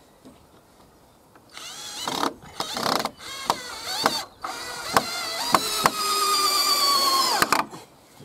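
Cordless drill-driver driving a screw into a timber frame: the motor whines in several short bursts starting about a second and a half in, then a longer run whose pitch drops just before it cuts off as the screw pulls tight.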